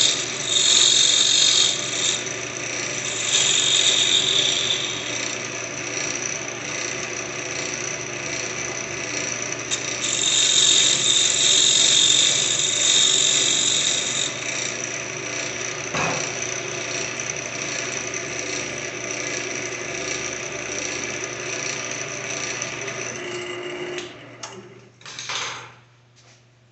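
Wood lathe running with a steady motor hum while a hand-held turning tool cuts the spinning wood, giving a high hiss of shavings in spells of a few seconds, loudest near the start and again around the middle. Near the end the lathe is switched off and runs down.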